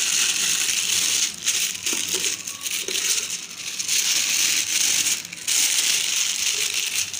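Butter paper crinkling and rustling as it is folded over by hand, with a couple of short pauses.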